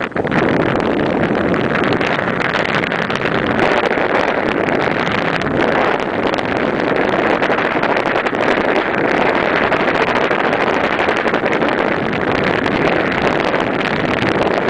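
Steady, loud rush of wind over the microphone of a camera carried on a paraglider in free flight.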